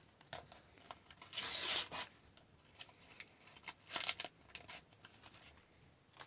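A sticker pack's wrapper torn open in one rasping burst about a second in, followed by light clicks and rustles as the stickers and cards inside are handled.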